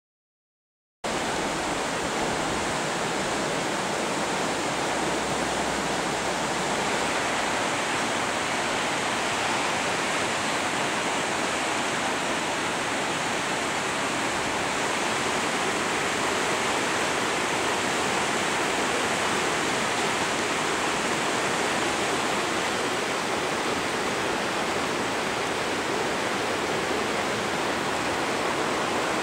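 A river in flood after heavy rain, its fast, swollen water rushing steadily; the sound starts abruptly about a second in.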